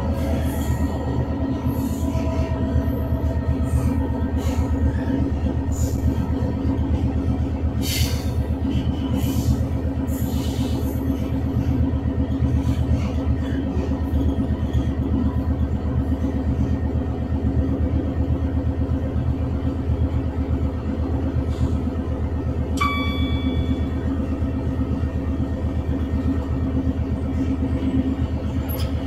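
Class 66 diesel locomotive running steadily, the low drone of its two-stroke V12 diesel engine heard from aboard. Irregular clicks and knocks from the wheels crossing rail joints and points come through the first dozen seconds or so. A single short electronic tone sounds about three-quarters of the way through.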